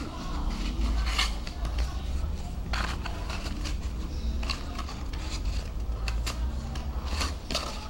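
Cardboard pieces being handled and fitted together by hand: scattered rustles, scrapes and light taps at irregular moments, over a steady low rumble.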